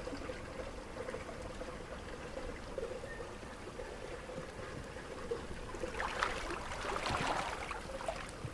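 Steady sound of running water, like a stream, with a louder stretch of noise about six seconds in that lasts a second or two.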